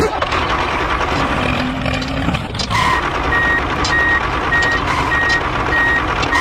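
A construction vehicle's reversing alarm beeping about five times at an even pace, starting about halfway through, over its engine running steadily.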